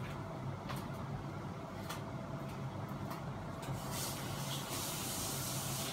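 Fanimation Benito ceiling fan running, a steady low hum with a rush of moving air, and a few light clicks. A high hissing rush comes in about four seconds in.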